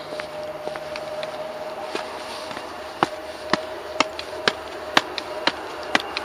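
Footsteps climbing outdoor stairs. A few light steps come first, then from about three seconds in the steps land sharply and evenly, about two a second. A steady thin hum runs underneath.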